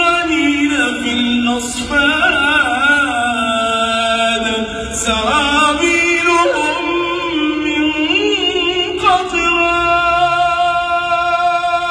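A man reciting the Quran in a melodic chanting style: one voice holding long notes with ornamented turns between them.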